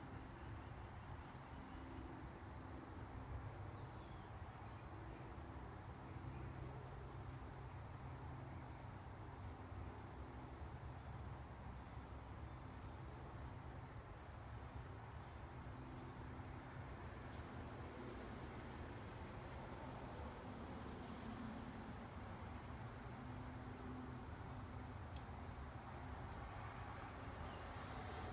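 Insects singing: a steady, unbroken high-pitched trill, over a faint low background rumble.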